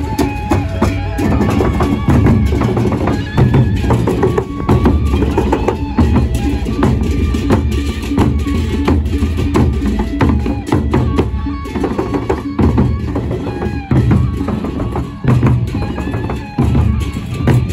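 Gendang beleq ensemble playing: large double-headed Sasak barrel drums beaten with sticks in a dense, driving interlocking rhythm, with short ringing tones above the drumming.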